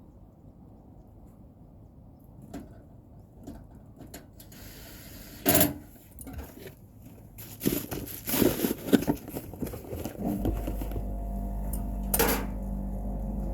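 Scattered clicks and knocks of hands and tools on parts, the loudest a sharp knock about five seconds in and a busy cluster later. Then a steady electric machine hum starts abruptly near the end and keeps running.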